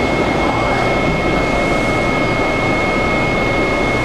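Washington Metro 7000-series railcar heard from inside as it slows into a station: a steady rumble from the wheels and running gear, with a thin, steady high tone held over it.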